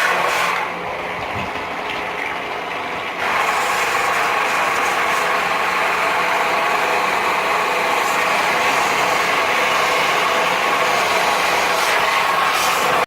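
Pressure washer running steadily with a hiss of spray, turning quieter about a second in and coming back up about three seconds in.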